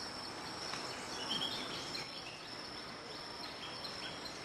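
Tropical forest ambience: a steady high insect drone with scattered short bird chirps over it.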